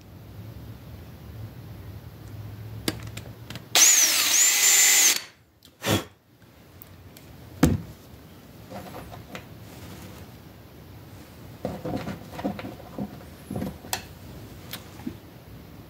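Cordless drill run in one burst of about a second and a half, boring a small hole, then a brief second burst. A single knock and some light handling clicks follow.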